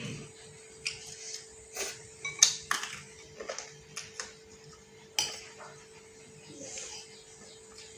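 Cutlery clinking and scraping against a noodle bowl while eating, in a dozen or so irregular short knocks, the loudest about two and a half seconds in.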